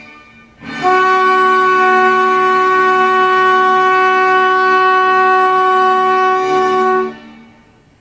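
Trombone holding one long, steady note for about six seconds, starting a little under a second in and released about seven seconds in, with a short ring of the room after it. It is the held closing note of a piece.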